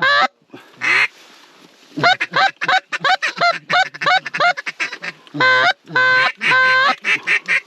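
Goose honking in quick, loud runs of short calls that break sharply upward in pitch, with a denser run about five and a half seconds in.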